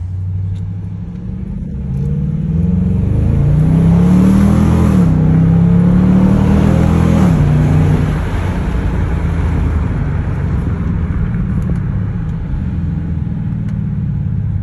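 Dodge Durango with Flowmaster exhaust accelerating hard, heard from inside the cabin: the engine pitch climbs, drops at an upshift about five seconds in, climbs again and drops at a second shift. It then settles into a steady lower rumble as the driver eases off.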